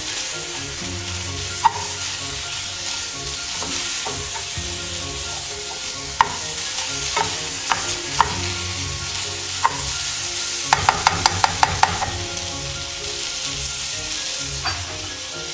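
Curry-seasoned chicken pieces sizzling in olive oil in a frying pan, stirred with a plastic spoon that scrapes and clicks against the pan now and then, with a quick run of about seven taps about two-thirds of the way in.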